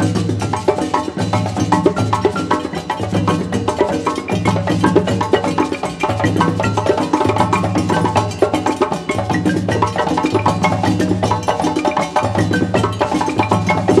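West African percussion ensemble playing a fast, dense rhythm on djembe hand drums and balafon, over a low pulsing drum pattern.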